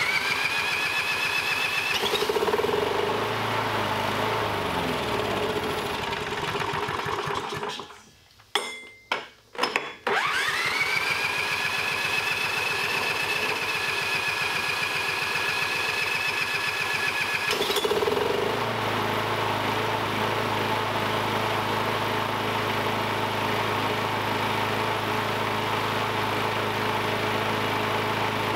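Push lawn mower's small engine running on a 50/50 gasoline-diesel mix. It speeds up, runs a few seconds, then slows and dies about six to eight seconds in. After a few short sputters it starts again, speeds up and runs steadily, its note changing and settling near eighteen seconds.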